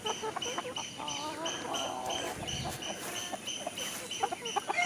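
Chickens clucking softly, with a high short chirp repeating a little over twice a second in the background.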